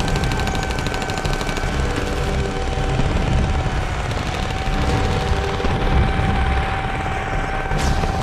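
Film battle sound: rapid automatic rifle fire in dense volleys over a heavy continuous low rumble, with a few sharper single shots standing out and a steady high tone held underneath.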